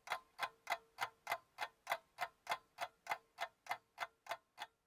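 Clock ticking quickly and evenly, about three ticks a second, with a faint steady hum underneath.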